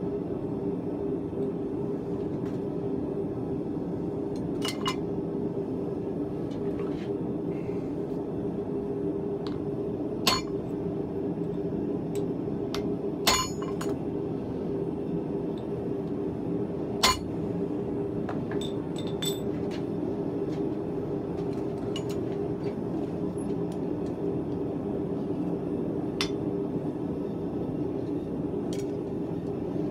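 Steady hum of a blacksmith's forge running as it warms up, with a few scattered sharp metallic clinks of steel and tools knocking together.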